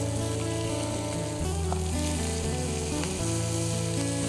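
Basa fish fillets sizzling steadily in a hot pan of butter and oil, a constant frying hiss.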